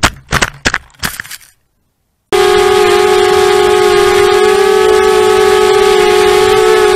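A racing quadcopter strikes branches, several sharp knocks in the first second and a half, then the sound cuts out. About two seconds in, a steady, even whine of its motors and propellers at a constant pitch begins as it hovers and drifts slowly.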